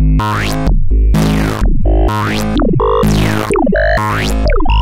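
Electronic oscilloscope music: a synthesizer track whose stereo signal draws the shapes on the scope screen. A falling synth sweep comes about once a second over a heavy, steady bass.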